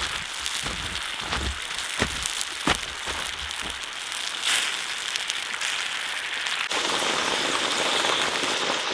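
Lard, sliced potatoes and onion frying in a pan: a steady sizzle with scattered pops and crackles.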